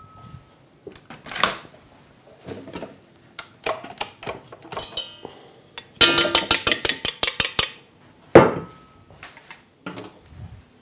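Stainless steel bowl and whisk attachment of a stand mixer clinking and knocking as they are handled. About six seconds in comes a quick run of about a dozen taps, then a single ringing metal clank.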